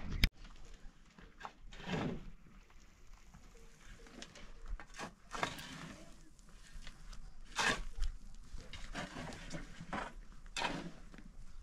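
Sheep bleating now and then, several separate calls a few seconds apart, with a sharp knock right at the start.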